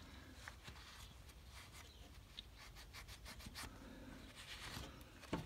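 Faint rubbing and light scuffs of a cloth rag wiping oil off a small engine's oil filter mount.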